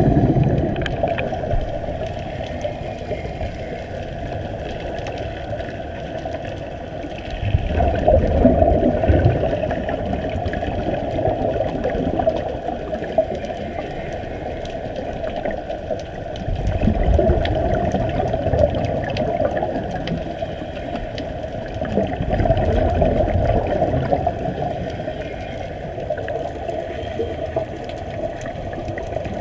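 Muffled underwater rushing and bubbling heard through an underwater camera, swelling louder three times.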